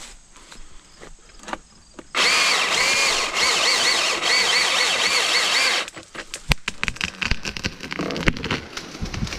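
Milwaukee M18 Fuel 2727-20 battery chainsaw starting up about two seconds in and cutting through a log for almost four seconds, its high motor whine rising and falling as it works through the wood, then stopping abruptly. A run of sharp clicks and knocks follows.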